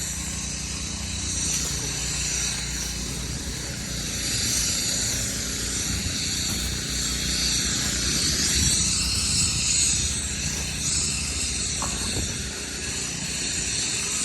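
Steady mechanical noise from renovation work on a house: a low engine-like hum under a continuous high hiss, unbroken throughout.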